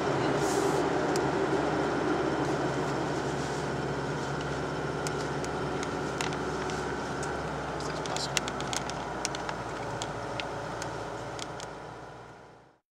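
Holden Rodeo 4WD ute driving along a sand beach, heard from inside the cab: a steady engine and tyre drone with scattered sharp ticks and rattles, fading out to silence near the end.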